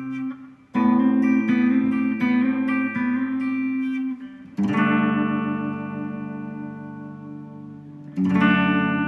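Harley Benton Les Paul-style electric guitar being played. A quick run of single picked notes comes first, then a chord is struck about four and a half seconds in and left to ring and fade, and another chord is struck near the end.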